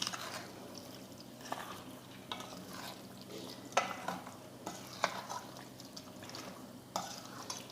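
A spoon stirring spice-coated chicken pieces in a pan, with scattered scrapes and knocks of the spoon against the pan over a faint steady hum.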